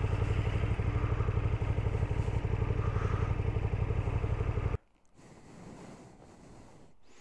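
KTM 1290 Super Duke GT's V-twin engine running at low speed with an even pulsing beat, which cuts off abruptly about five seconds in. A faint outdoor background follows.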